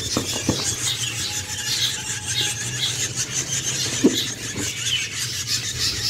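A brood of nestling songbirds, mostly black drongo chicks, begging for food: a constant chorus of short, high cheeping calls. A couple of knocks from the cardboard box near the start, over a low steady hum.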